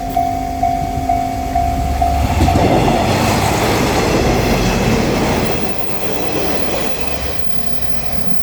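Level-crossing bell ringing its steady kan-kan about two and a half strokes a second, then a JR Shikoku Anpanman diesel train with its trolley car passes. Its wheels clatter over the rail joints, loudest about three to five seconds in, and the noise eases off near the end.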